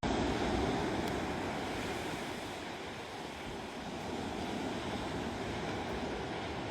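Surf washing on the shore with wind, a steady rush that eases off about halfway through and builds again.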